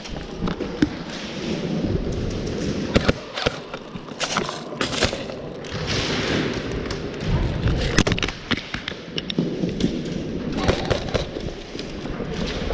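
Airsoft guns firing single shots and short strings at irregular moments, with BBs smacking into walls and barriers.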